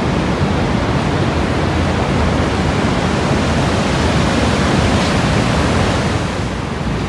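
Niagara's Horseshoe Falls plunging close by: a steady, heavy rush of falling water.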